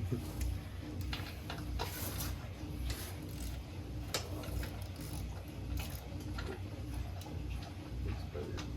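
Tomos A35 moped's 49cc two-stroke single-cylinder engine idling steadily with a fast, even ticking pulse after the rebuild, with a few sharp clicks on top.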